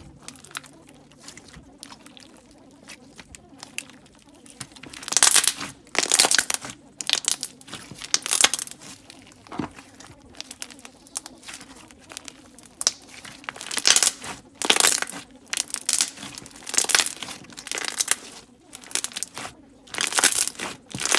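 Hands squeezing and pressing a thick bead slime, giving crinkly crackles and small bubble pops in repeated bursts about once a second, starting about five seconds in.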